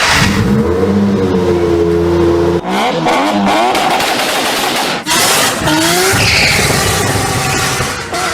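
Car engine revving hard, its pitch rising and falling several times, with rough noisy stretches in between.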